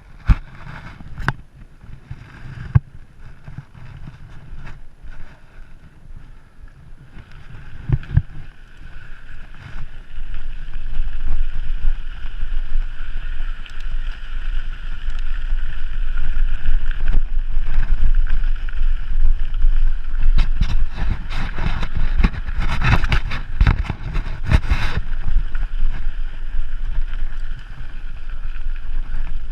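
Wind buffeting the microphone of a camera riding along on a mountain bike, a low rumble that grows louder about ten seconds in as speed picks up, with knocks and rattles from the bike going over bumps, busiest about two-thirds of the way through.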